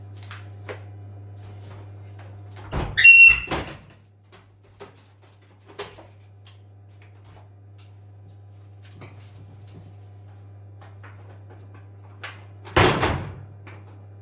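A loud clunk with a brief high squeak, a few light ticks, then a second loud knock near the end, all over a steady low hum: a hinged door or panel being worked.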